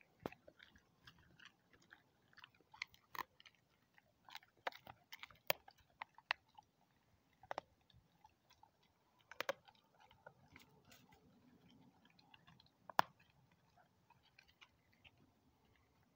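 A dog chewing and crunching a raw kangaroo spine: irregular sharp cracks of bone and gristle, thick in the first several seconds, a short lull past the middle, then a few louder single cracks.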